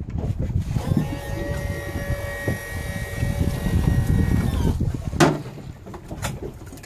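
A steady mechanical whine lasts about four seconds and then stops, its pitch dipping slightly as it ends, over a low rumble of wind and water on the boat. A single sharp knock follows about five seconds in.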